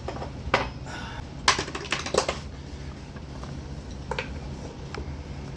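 Scattered light metallic clicks and taps of hand work on an ATV carburetor as the choke plunger is pushed into place and its 13 mm nut is done up, over a low steady hum.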